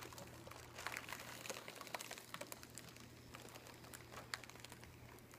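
Faint crinkling and scattered small clicks of a foil helium balloon being handled in the hands, over a faint steady low hum.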